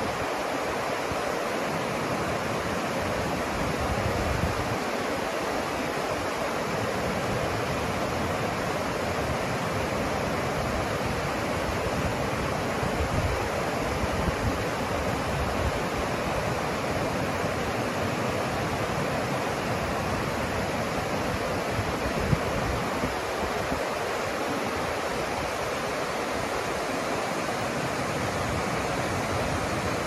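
The Caldera River rushing over boulders in white-water rapids, a steady, unbroken rush of water. One brief sharp tick stands out about three-quarters of the way through.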